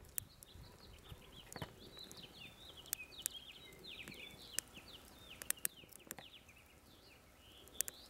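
Sharp, scattered crackles and pops from pine sticks burning in a rocket stove, with a bird twittering faintly in quick, high chirps through most of the stretch.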